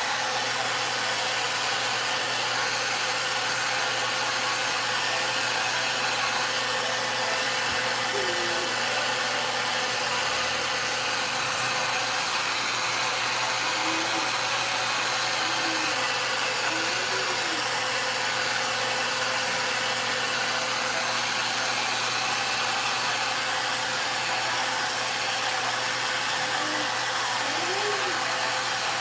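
VONE handheld hair dryer running steadily: a constant rush of air with a faint steady hum.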